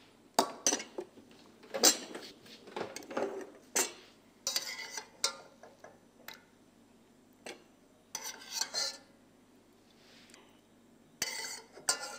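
A metal spoon and skimmer clinking and scraping against a stainless steel saucepan and a glass bowl as poached apricots are lifted out of their cooking water, in irregular bursts of several knocks each.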